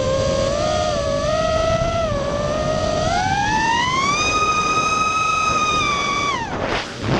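FPV mini quadcopter's electric motors and propellers whining over a rush of wind noise. The pitch climbs from about two seconds in as the throttle goes up, holds high, then falls sharply near the end as the throttle comes off.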